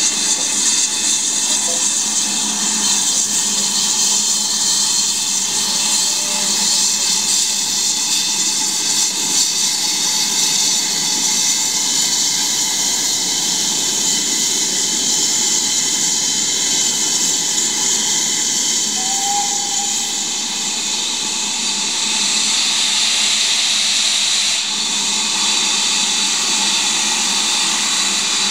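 BR Standard Class 9F steam locomotive 92212 passing close by, with steam escaping in a steady, loud hiss.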